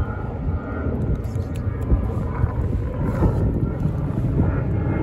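Steady low rumble of outdoor background noise, with faint tonal sounds above it.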